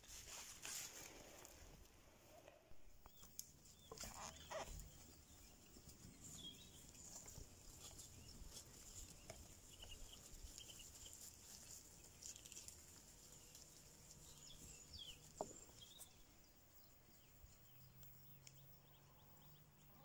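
Near-silent rural ambience with scattered faint chirps and a few soft calls from a grazing sheep flock.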